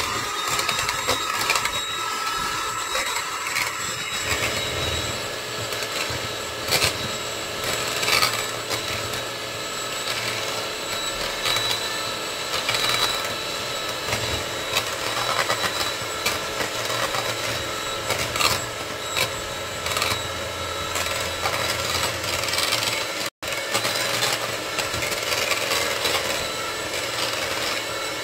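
Electric hand mixer running steadily with a whine, its beaters whipping cold cream and cocoa in a plastic bowl and clicking against the bowl's sides as the cream thickens into chocolate whipped cream.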